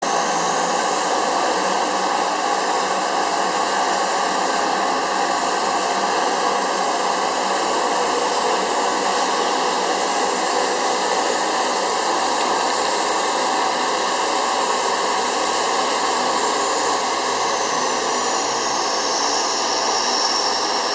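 C-130J Super Hercules turboprop engine sound effect: a steady rushing whine with no low rumble, and a high tone that shifts in pitch near the end.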